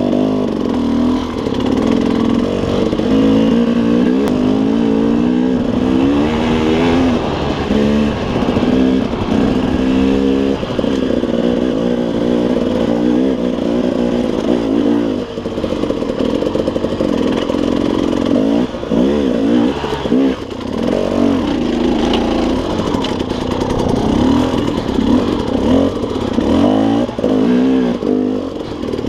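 KTM 300 two-stroke dirt bike engine on the throttle, revving up and down over and over as the rider works it along rough trail.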